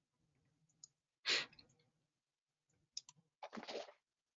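Faint computer mouse clicks: single sharp clicks just under a second in, a quick pair about three seconds in, and two short soft breath-like sounds about a second in and near the end.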